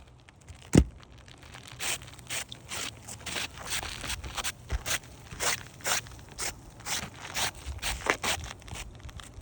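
Gritty crunching and scraping on roof shingles, short strokes about two a second, after a single sharp knock just under a second in.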